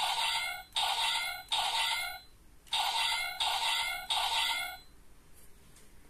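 DX Raising Sword toy's electronic sound effect playing through its small speaker: two runs of three identical short electronic blasts, each with a faint rising tone, with a brief pause between the runs.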